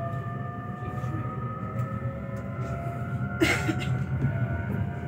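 Inside an electric train carriage pulling away from a station: a steady low rumble with a motor whine that rises slowly in pitch as the train gathers speed. There is a brief sharp clatter about three and a half seconds in.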